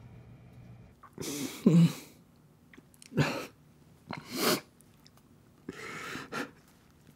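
A man crying: four bouts of ragged breaths and sniffs a second or so apart, the first ending in a short voiced sob.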